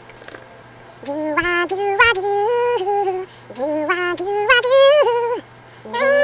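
A solo voice singing held, wordless notes, unaccompanied, the pitch stepping up and down. It starts about a second in, sings two phrases with a short break between them, and begins a third near the end. A faint steady hum runs underneath.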